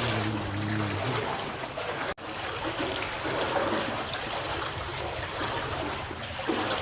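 Floodwater from an overflowing drain channel (nala) running through the streets, a steady rushing of water. A short droning tone sounds over it in the first second, and the sound drops out for an instant about two seconds in.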